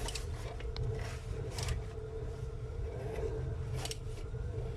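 A few short metallic clicks and scrapes of a wrench and hands working at the crankshaft pulley of a stopped engine, over a steady low background hum.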